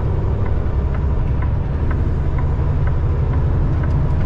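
Semi truck's engine and road noise heard inside the cab at highway speed: a steady low drone, with faint regular ticks about twice a second.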